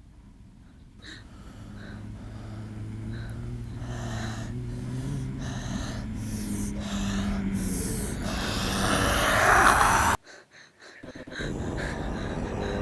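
Heavy, gasping breaths over a low drone in a film soundtrack, swelling steadily louder until everything cuts off abruptly about ten seconds in, then picks up again a second later.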